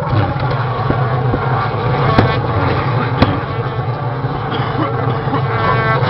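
Propane flame effects firing from a fire-breathing art car, over a steady low hum, with sustained pitched tones from its keyboard-played horn and organ. Two sharp pops about two and three seconds in.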